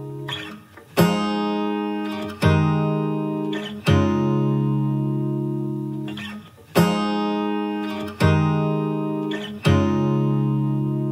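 Background music: an acoustic guitar strumming slow chords, a new strum about every one and a half seconds, each left to ring out.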